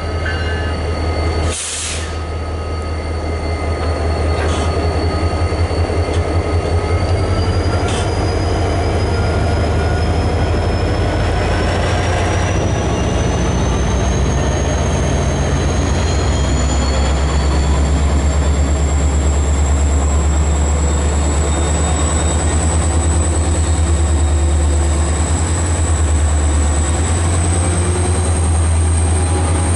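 CSX SD40-3 diesel-electric locomotive approaching with a heavy low engine rumble that grows louder over the first several seconds, with a thin high whine that slowly climbs in pitch and a few faint knocks.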